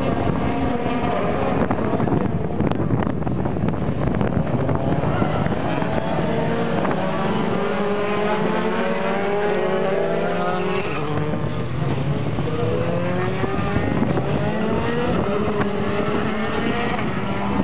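A pack of Formula 3 cars' four-cylinder racing engines going past together on the opening lap, many overlapping engine notes rising and falling as the drivers work through the gears.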